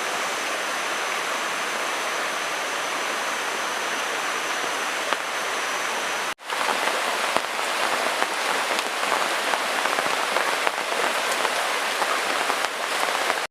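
Steady rain falling, an even hiss of drops. It cuts out for an instant about six seconds in, then comes back a little louder with more patter.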